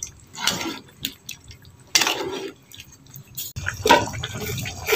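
A ladle stirring chunky chicken stew in tomato sauce in a pan: the sauce sloshes and the ladle scrapes in a few separate strokes, the loudest about two seconds in. About three and a half seconds in, a steadier liquid sound of the stew simmering comes in under further stirring.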